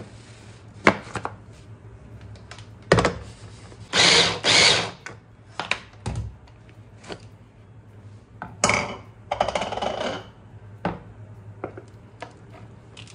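Electric food chopper pulsed in short runs to grind large red chillies coarsely. There are two quick bursts about four seconds in and a longer one around nine seconds, with separate sharp knocks between them.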